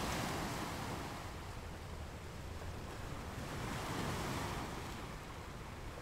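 Sea surf breaking and washing in, swelling at the start and again about four seconds in, with a steady hiss of water between.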